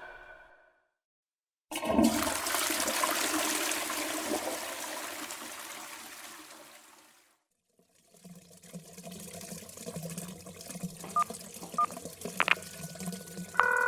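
Toilet flushing, starting suddenly about two seconds in and dying away by about seven seconds. The water then keeps running quietly with a low hum, as a toilet that won't stop running does. A few short phone-keypad beeps follow, and a steady phone ringing tone starts near the end.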